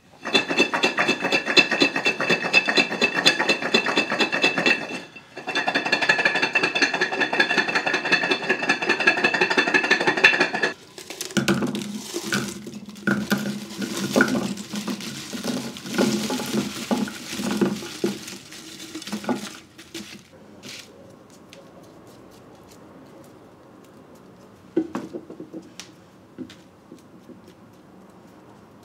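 Garlic cloves shaken hard inside a closed swing-top glass jar, rattling against the glass in two long bouts with a brief pause between: the shake loosens their papery skins. About ten seconds in, the cloves are tipped out onto a ceramic plate with several seconds of clattering and clinking. Faint handling sounds follow as the skins are peeled.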